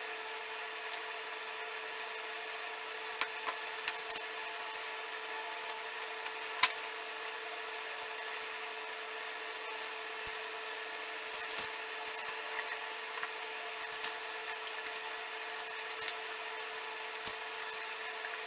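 Scattered light clicks and knocks of glued wooden staves being handled and fitted together, with one sharper knock about a third of the way through, over a steady hum.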